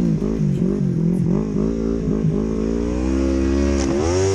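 Yamaha snowmobile engine revving in quick surges as the sled churns through deep powder, its pitch rising and falling, then climbing in a longer rise near the end as the sled digs in and tips.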